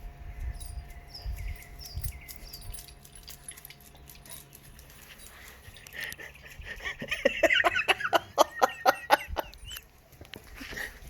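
Dog snarling at another dog over its food: a rapid run of sharp growls lasting about three seconds, starting about six seconds in.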